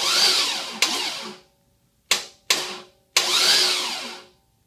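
A small-block Chevy V8 being turned over in short bumps. There are two whirring spins, each about a second long, that start with a sharp click and rise then fall in pitch, with single sharp clicks between them.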